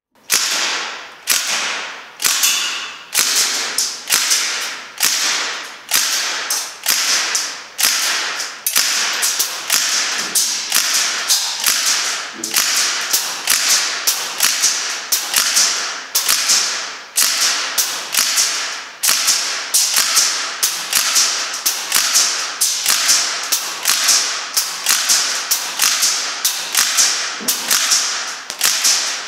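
Northeast Sten MkV gas blowback airsoft gun fired in single shots, about one a second, each shot with the bolt cycling, from a magazine charged with one fill of propane.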